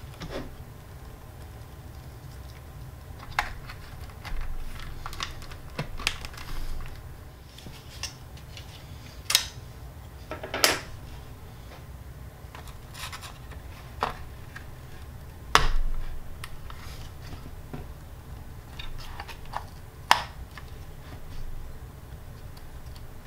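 Irregular clicks and knocks of hard plastic and metal computer parts being handled and fitted, as cables are routed and a graphics card is set into a motherboard's PCIe slot. The two loudest clicks come a little past halfway and near the end, over a steady low hum.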